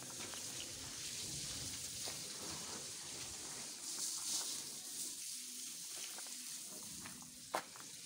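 High-pressure washer jet spraying water onto a JCB 3CX backhoe loader, a steady hiss that swells briefly about four seconds in. A sharp click sounds just before the end.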